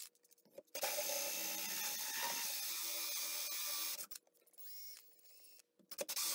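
Cordless drill turning a hole saw and grinding into a granite countertop through a wooden drill guide, with lubricant on the cut. A steady grinding runs for about three seconds, then a quieter pause with a brief rising whine, and the grinding starts again near the end.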